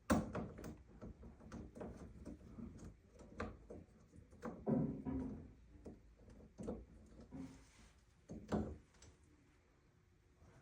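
Irregular knocks, clicks and taps of plumbing parts and tools being handled while fitting a shower valve. The loudest knock comes right at the start, another sharp one comes near the end, and a duller thud lands about halfway.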